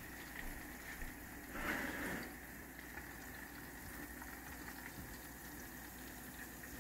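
Hot deep-frying oil bubbling and sizzling faintly and steadily, with a brief louder noise about two seconds in.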